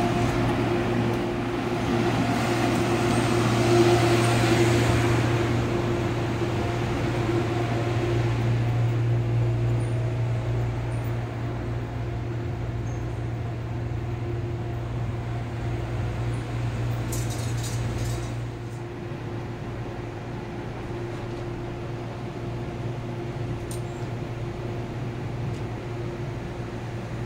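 Steady hum of the air-conditioning and onboard equipment of an MTR Airport Express CAF-built train standing at the platform with its doors open. A louder hiss comes in the first few seconds, and there are a few faint clicks about two-thirds of the way through.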